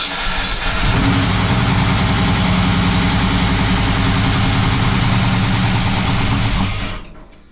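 Pushrod engine with link-bar lifters catching on a cold start after sitting. It runs for about six seconds, then dies suddenly near the end.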